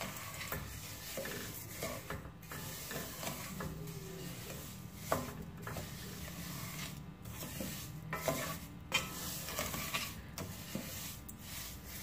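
Wooden spatula stirring and scraping sugar through melted ghee in a stainless-steel pot, to melt the sugar. A few sharper knocks come from the spatula against the pot.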